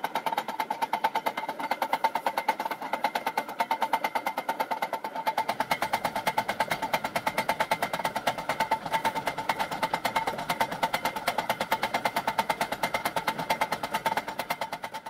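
Background music with a fast, steady beat; a bass part comes in about five seconds in, and the music fades out at the end.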